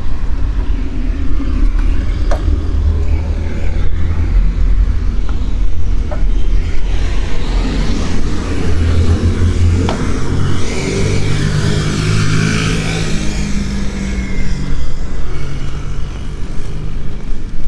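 Street sound with a car passing close by. Its tyre hiss and engine hum swell about halfway through and fade near the end, over a steady low rumble.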